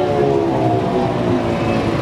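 Electric grinder-style orange juicer's motor running under load as oranges are crushed, its whining pitch sliding slowly downward.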